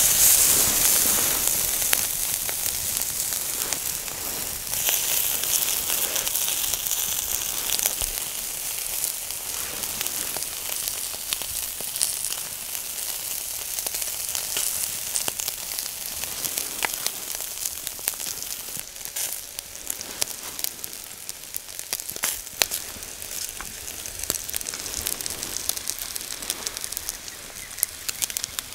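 Chicken skin sizzling and crackling on a wire grill over charcoal, with many sharp pops of spitting fat. The hiss jumps up as the skin is laid on the grate, swells again about five seconds in, then slowly dies down.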